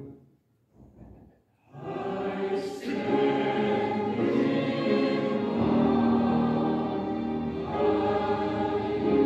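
Church choir singing with accompaniment; the music breaks off for about a second and a half at the start, then comes back in and carries on.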